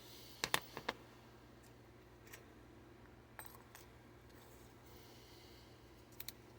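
Light clicks and taps of cylindrical Li-ion cells and tape being handled on a workbench: a quick run of four clicks just after the start, single softer clicks a few seconds in, and two close clicks near the end.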